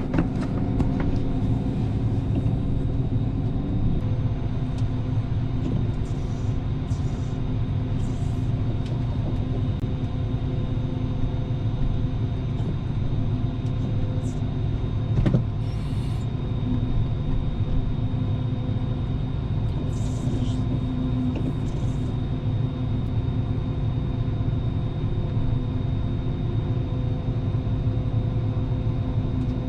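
Large diesel engine of a farm machine running steadily at constant speed, with a thin steady whine above the drone. There is a single sharp knock about fifteen seconds in.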